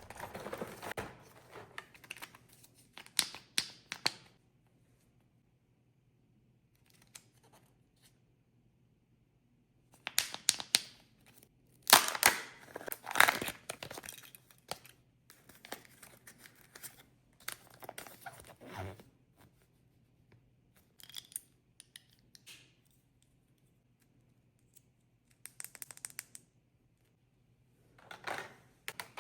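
Kinder Joy egg wrappers being torn open and crinkled by hand, in bursts with silent pauses between them; the loudest tearing comes near the middle.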